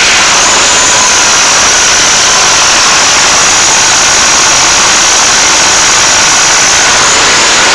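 SMD-18 four-cylinder tractor diesel engine running loudly and steadily on its first start, with a steady high whine over the engine noise that fades out near the end.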